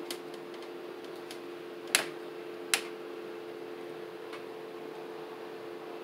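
Yamaha YPG-235 keyboard's sine lead voice holding two pure notes together, A4 and a lower note, as a recreation of a telephone dial tone, sustained with the sustain pedal. Two sharp clicks come about two seconds in, under a second apart.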